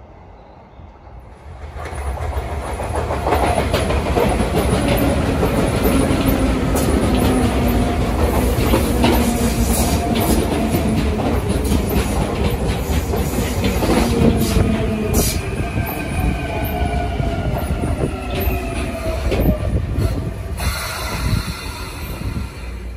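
Sotetsu 9000-series electric commuter train running into the station past the camera and slowing to a stop. Its wheels clack over the rail joints, and its motor whine falls in pitch as it brakes. It gets loud about two seconds in and fades near the end as the last car passes.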